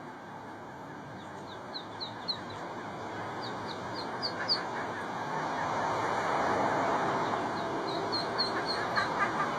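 Ducklings peeping: quick runs of short, high chirps in several bursts, over a steady rushing background noise.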